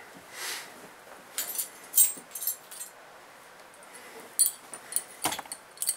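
Metal wrenches clinking and clattering as they are picked through for the right size: two bursts of sharp, ringing clicks and clanks, with one heavier knock near the end.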